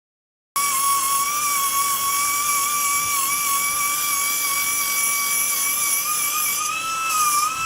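Nitto Kohki Baby Belton BB-10B pneumatic belt sander running: a steady high air-motor whine over a hiss of exhaust air, starting abruptly about half a second in, its pitch rising slightly and wavering near the end.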